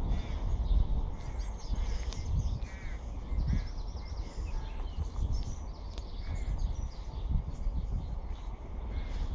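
Birds calling repeatedly from the trees, over a steady low rumble of wind buffeting the microphone.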